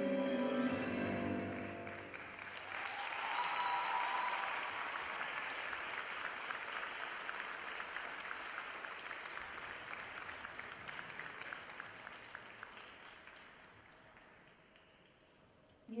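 Orchestral program music ends about two seconds in, and an arena crowd breaks into applause for the skater's finished routine. The applause swells quickly, then fades away slowly until it has almost died out near the end.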